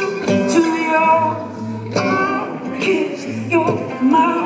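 Live folk performance: a man sings long, bending notes into a microphone over acoustic guitar. A few sharp percussive hits sound along with it.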